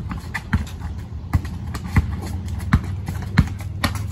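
Basketball dribbled on a concrete driveway: about six sharp bounces, roughly one every two-thirds of a second, over a steady low rumble.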